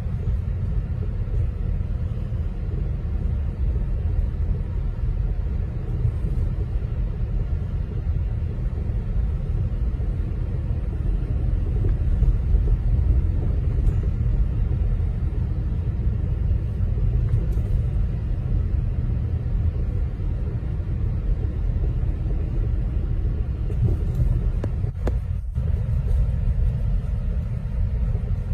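Steady low rumble of a car driving slowly on a snow-covered road, engine and tyre noise together, with one brief click near the end.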